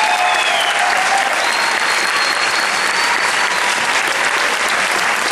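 Audience applauding steadily, with a couple of long high calls heard above the clapping.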